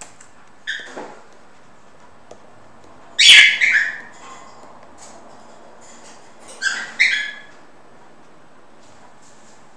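Three short, high-pitched animal calls, about one, three and a half and seven seconds in, the middle one the loudest.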